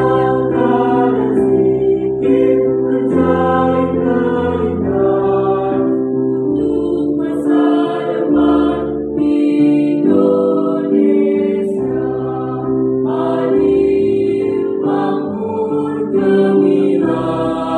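Mixed choir of women's and men's voices singing in harmony, holding long notes that change every second or two.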